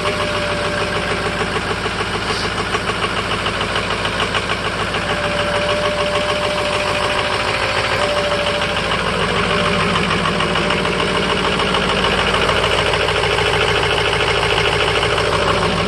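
A 2005 Ford F-350's 6.0 Power Stroke V8 turbodiesel idling roughly soon after a cold start, with a rapid, uneven pulsing beat that evens out somewhat after about nine seconds. The rough cold idle is what the owner puts down to injector stiction, with a couple of injectors on the way out.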